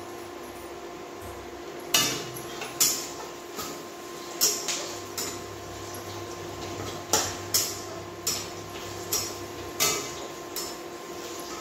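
Metal spatula clanking and scraping against an aluminium kadhai while stirring, about a dozen irregular knocks starting about two seconds in.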